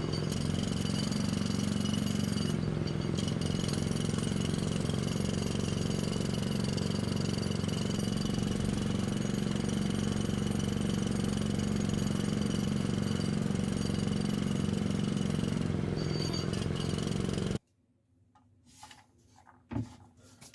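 A small electric motor running with a steady hum, cutting off abruptly about 17 seconds in; a few faint small sounds follow.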